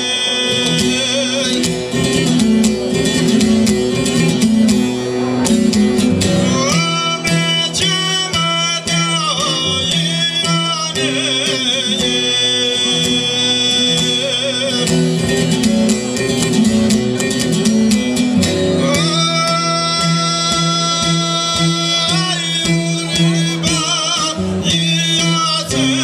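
A man singing an Albanian folk ballad in a high, ornamented voice with long held notes, accompanying himself on a plucked long-necked lute.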